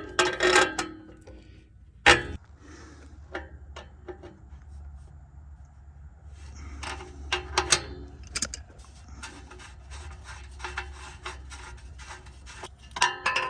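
Hand tools working on an exhaust oxygen sensor: rubbing and scraping with scattered metal clicks, loudest about two seconds in and in clusters later. A steady low hum runs underneath.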